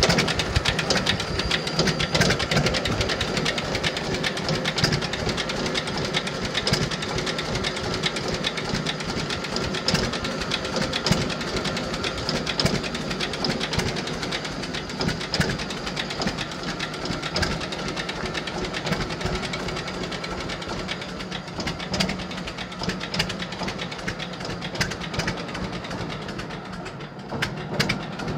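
John Deere Model D's two-cylinder engine running at idle with a steady, rapid rhythmic beat, a little quieter near the end.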